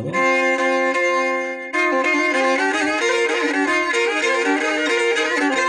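Black Sea kemençe, the small three-stringed bowed fiddle, being played. It opens on a held note and, from about two seconds in, breaks into a quick horon dance melody.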